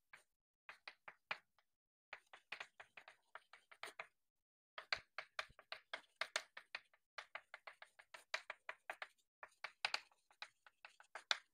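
Chalk writing on a blackboard, played sped up: a quick, irregular run of faint taps and short scratches.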